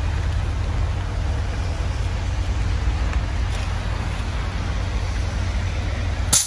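A vehicle running with a steady low rumble and road or engine noise. There is a single sharp click near the end.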